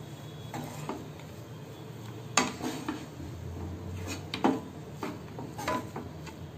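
Wooden spatula knocking and scraping against a pan while mixing cooked rice, with a string of sharp knocks, the loudest about two and a half and four and a half seconds in.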